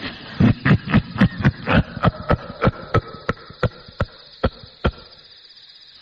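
A man's eerie laugh, a string of short 'ha' pulses that slow down and fade out over about four seconds.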